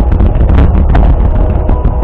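Starmine fireworks barrage bursting in quick succession, with continuous low booming and sharp cracks several times a second, over music played along with the display.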